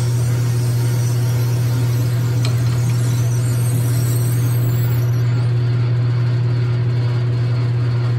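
Logan 6560 metal lathe running with a strong steady hum while a half-inch twist drill in the tailstock bores into a spinning nylon bar. A faint squeal and hiss from the drill cutting die away about five seconds in, as the drill is backed out of the hole.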